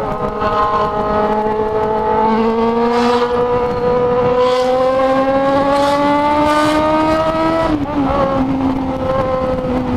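Yamaha XJ6 inline-four motorcycle engine pulling hard under throttle, its pitch climbing steadily for about eight seconds before dropping suddenly at a gear change or throttle lift, then holding steady.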